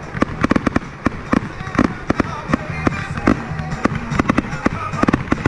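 Aerial fireworks shells bursting in quick succession during a finale: a dense string of sharp bangs, about three to four a second.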